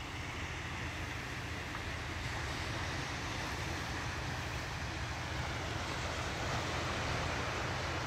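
Small waves of a calm sea washing onto a sandy shore, a steady hiss of surf, with a low rumble of wind on the microphone underneath.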